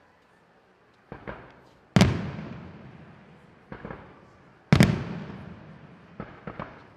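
Aerial firework shells bursting. A couple of small pops come about a second in, then two loud booms about three seconds apart, each trailing off in a long rolling echo, with lighter pops between and near the end.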